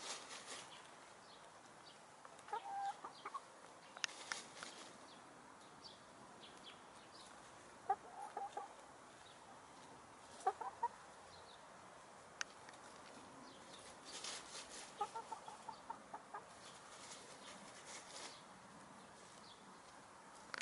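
A hen clucking in short calls every few seconds, with crackling rustles of dry leaves as she scratches and pecks in a compost heap.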